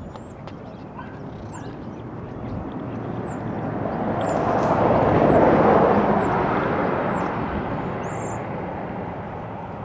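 A vehicle passing by, its noise swelling slowly to a peak about halfway through and then fading away. A bird chirps over it again and again with short, high, falling calls.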